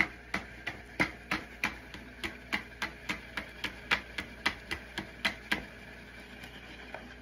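Homemade rotor-ride model, a paper cylinder on a wooden dowel, being spun by hand, with sharp clicks at about three a second that die away near the end.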